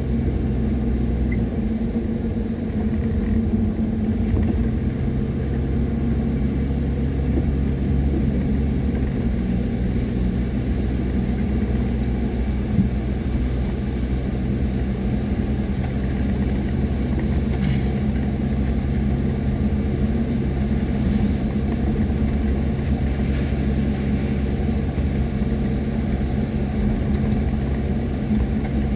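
Car being driven: a steady engine and road rumble that holds even throughout.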